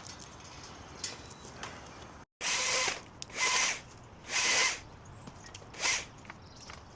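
Power hedge trimmer started in four short bursts of about half a second each, the first about two seconds in.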